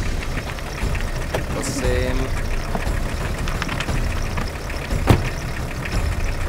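Van engine idling with a steady low rumble, under footsteps on gravel and a single sharp knock about five seconds in.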